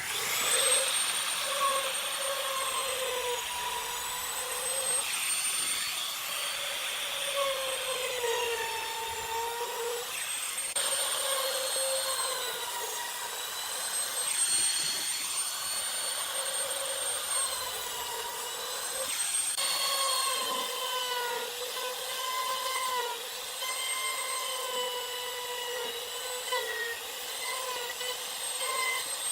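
Electric power tool motor running continuously with a high whine, its pitch sagging and recovering every few seconds as it works through wood.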